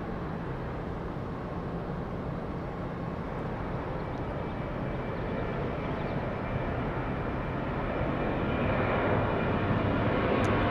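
Jet airliner engine noise, a steady roar that grows gradually louder as the aircraft spools up and approaches.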